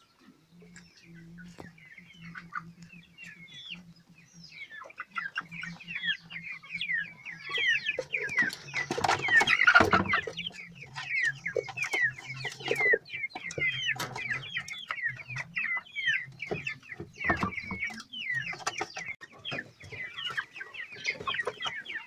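A flock of hens clucking and squawking: many short, falling calls, sparse at first, growing busy from about four seconds in and loudest around the middle.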